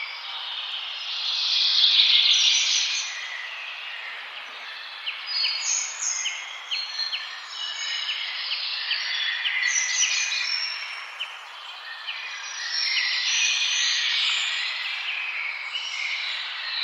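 Several songbirds singing and chirping together over a steady background hiss. A dense trilling swell comes about two seconds in and again near the end, with a run of short chirps, about two a second, in between.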